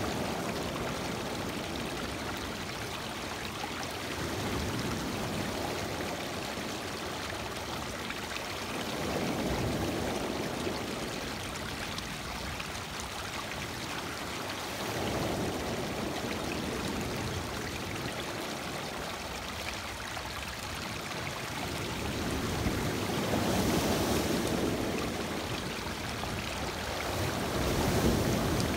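Lake Michigan waves breaking and washing in over a stony shore, water rushing and trickling among the rocks. The surf swells and falls every few seconds, loudest near the end.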